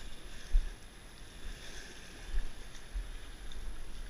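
Wind rumbling and buffeting on the microphone in uneven gusts, over the steady wash of small waves against the shore rocks.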